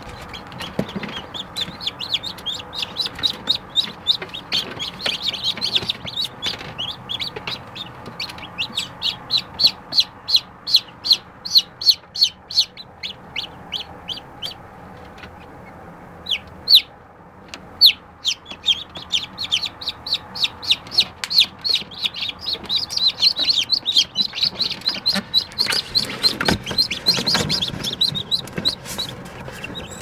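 Newly hatched domestic chicks peeping: a steady run of short, high chirps, about three to four a second, with a brief lull about halfway through.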